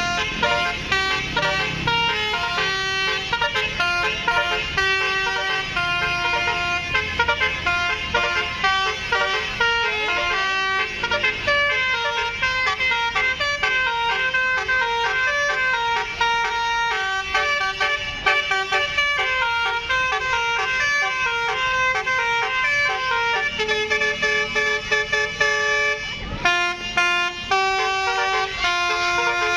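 Telolet horns, the multi-tone musical air horns of Indonesian tour buses, playing quick stepped melodies without pause, several horns overlapping as rival buses answer each other. A short gap comes near the end before the horns resume.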